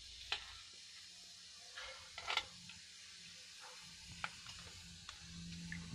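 Cumin seeds and cloves sizzling faintly in hot oil in a steel kadhai, with a few light clicks and ticks scattered through, a small cluster of them about two seconds in.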